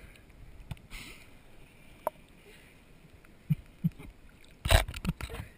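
Water lapping and splashing against a waterproof camera held half-submerged at the surface, with a few faint knocks and one sharp splash a little under five seconds in.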